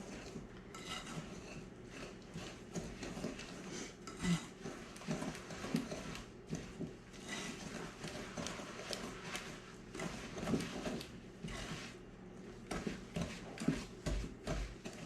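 Hand whisk beating eggs into butter and sugar in a mixing bowl: a fast, uneven run of knocks and clicks of the whisk against the bowl.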